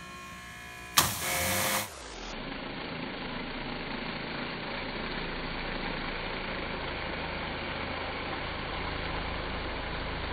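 Ryobi 2300 PSI electric pressure washer starting to spray through its turbo nozzle: a sharp click about a second in, then a loud burst of pump whine and spray hiss. From about two seconds on the sound is slowed down, a deep, steady rumbling hiss of the spray on the siding with a low hum under it.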